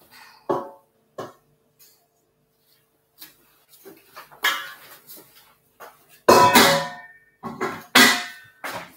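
Stainless-steel mixing bowl and utensils knocking and clattering: two light ringing knocks in the first second or so, then louder clangs and clatter about four and a half, six and a half and eight seconds in.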